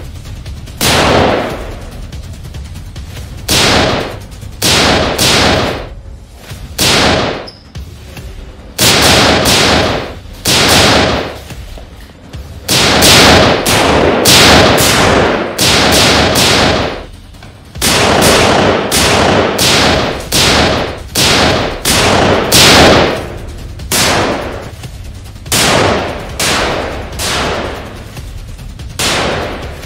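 Handgun shots in a gunfight: a long string of sharp reports, some single and some in quick runs of several, each with a short ringing tail, over a steady low hum.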